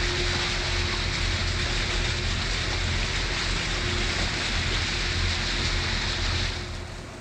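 Steady rushing hiss of water along a moving catamaran's hulls, with wind rumbling on the microphone and a faint steady hum underneath; it drops noticeably in level about six and a half seconds in.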